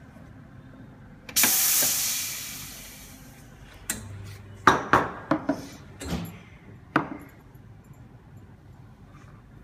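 Espresso machine steam wand purged: a loud, high hiss starting about a second in and fading away after about two seconds. Then about half a dozen sharp clinks and knocks as a ceramic cup and a steel milk pitcher are handled and set down on a wooden counter.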